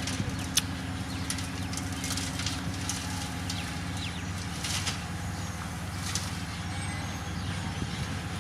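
Diesel engine of a heavy road-construction machine running steadily under load, with scattered sharp clicks and knocks of rock and gravel being pushed.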